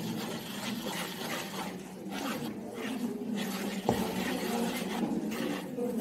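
Wire whisk stirring thick flour-and-milk cake batter in a plastic bowl, making repeated rubbing and scraping strokes. A single sharp knock sounds about four seconds in.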